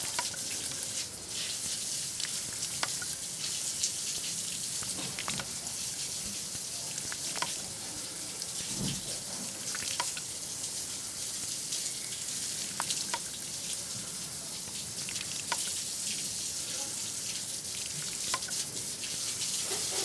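Water running steadily from the bamboo spout of a shishi odoshi water feature and splashing into the water below, with scattered drips. There is one soft low thump about nine seconds in.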